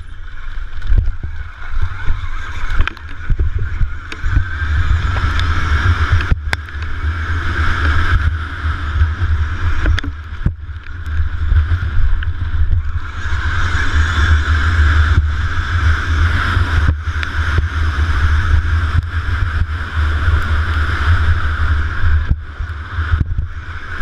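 On-board sound of an electric KTM motocross bike being raced: heavy rumbling buffeting on the camera microphone, a whine that swells and fades with the throttle, and frequent sharp knocks from the bike over the track.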